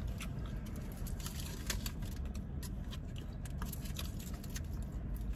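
Aluminium foil wrapper around a burger being unfolded by hand, with scattered light crinkles and rustles.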